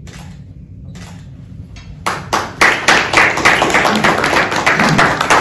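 A small group of people clapping, starting suddenly about two seconds in and going on as dense applause.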